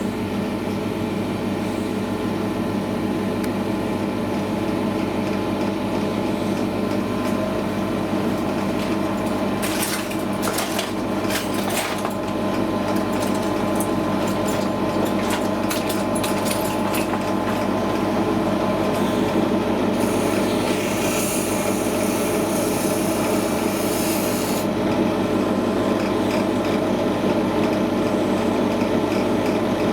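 Record Power DP16B bench drill running steadily with a sanding disc in its chuck. The disc rubs against a workpiece in scratchy spells, briefly about ten seconds in and again for several seconds starting about twenty seconds in.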